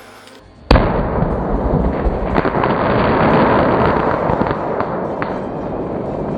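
Grand Patriot Nemesis 5-inch canister shell going off inside a pumpkin: a sudden loud blast under a second in, followed by several seconds of dense rumbling noise with a few sharp cracks, cutting off abruptly near the end.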